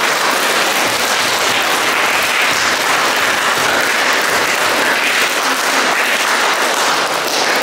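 Audience applauding, loud and even.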